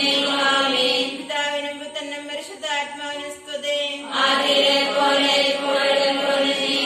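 A group of women praying aloud together in unison, a chant-like recitation on a steady pitch. The voices thin out and grow quieter for a few seconds in the middle, then come back at full strength.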